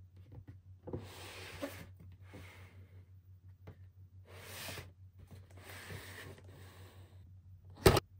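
Cardboard toy boxes being handled and turned over, soft rubbing and sliding sounds in several uneven swells over a steady low hum, with one sharp knock near the end.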